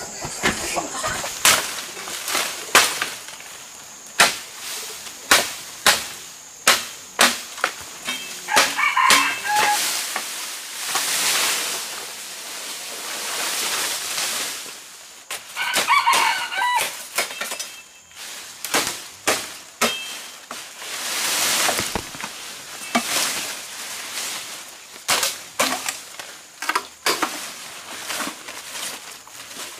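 Machete chopping through undergrowth in sharp strikes, roughly one a second, with a rooster crowing twice, about nine and sixteen seconds in.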